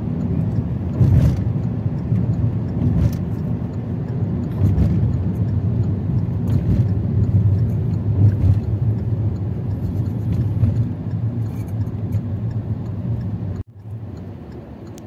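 A car's engine and road noise heard from inside the cabin as a steady low rumble. Near the end it drops suddenly to a quieter cabin hum.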